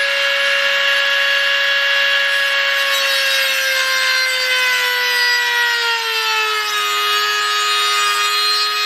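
Dremel-type rotary tool running under load, grinding down a protruding pin on the e-bike wheel. A steady whine over a grinding hiss, its pitch sagging a little past the middle as the tool bites in.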